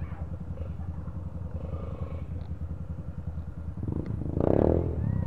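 Trail dirt bike engine idling with a steady low pulsing, then briefly louder about four and a half seconds in as the revs rise.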